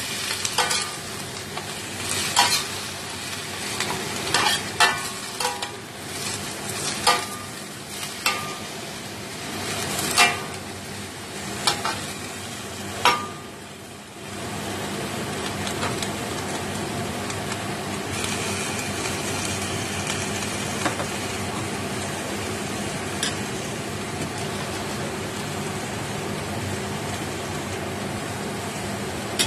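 Napa cabbage sizzling as it is stir-fried in a stainless steel wok, with a metal spatula scraping and clanking against the pan many times through the first half. After a brief dip about halfway, a steadier sizzle runs on with only an occasional clank.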